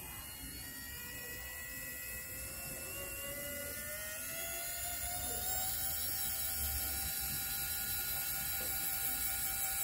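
The small electric motor of a homemade RC dump truck's tipping mechanism whining as it raises the dump bed, rising slowly in pitch and growing louder as the bed lifts.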